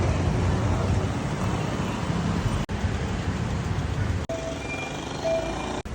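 Road traffic noise: vehicles passing on a city street, heard in several short clips cut together, with brief steady tones about five seconds in.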